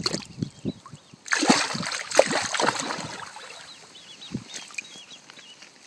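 Water splashing and sloshing, loudest from about one to three seconds in, with small birds chirping faintly.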